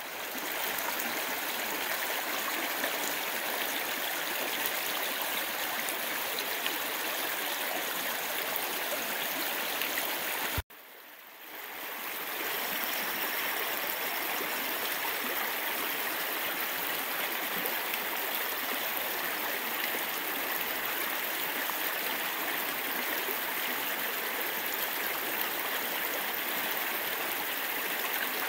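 Small mountain creek running over rocks and riffles: a steady rushing of flowing water. It cuts out abruptly about ten seconds in and fades back up over a second or so.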